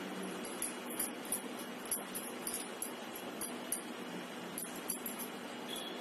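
Glass or metal bangles jingling in quick, light, irregular clinks as hands shape mashed-potato patties, over a steady background hiss.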